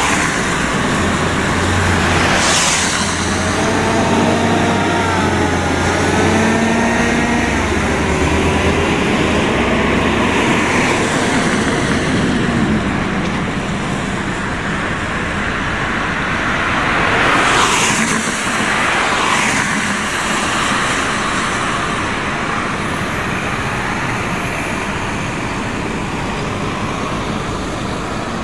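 City transit buses driving out past one after another, with engine drone and tyre and road noise. The closest passes swell loudest about two and a half seconds in and again around seventeen to nineteen seconds in.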